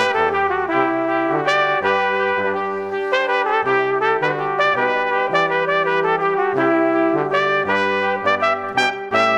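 Brass band music: trumpets carrying a quickly moving tune over trombones and a bass line that changes in steps.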